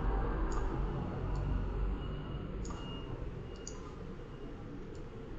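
Computer mouse clicking, about five separate sharp clicks spread out, over a steady low background hum.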